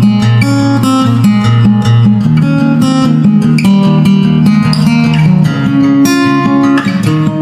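Background instrumental music featuring guitar.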